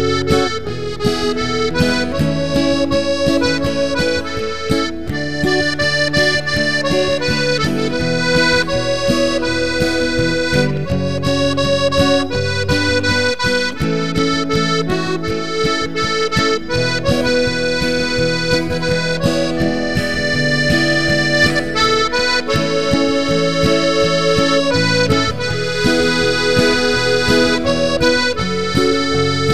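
Background instrumental music led by an accordion, a lively tune with sustained notes over a repeating bass.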